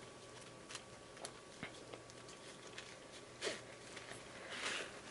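Faint handling sounds of a nylon webbing belt being threaded through a plastic buckle: scattered light ticks, with brief rustles about three and a half seconds in and near the end.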